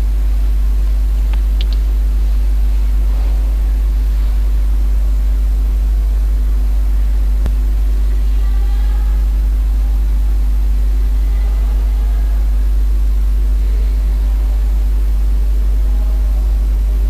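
Steady low hum with an even hiss over it, unchanging throughout: the recording's own background noise.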